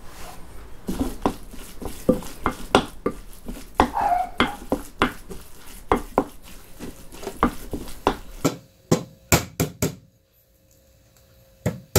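Kitchen utensils knocking and clinking: sharp, irregular knocks of a knife or spoon against a board or pan, about two or three a second. They thin out to a few single knocks near the end.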